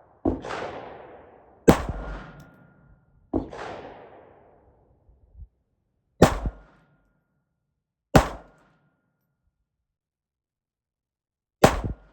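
Suppressed Ruger Mark IV .22 LR pistol firing supersonic Winchester rounds: about six sharp shots spaced one to three and a half seconds apart, the earlier ones trailing off in a long echo. The pistol is cycling the ammo cleanly.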